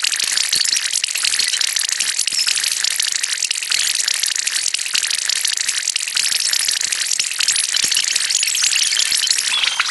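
Dense, steady crackling noise made of rapid clicks, mostly high-pitched, from sped-up, heavily distorted meme audio.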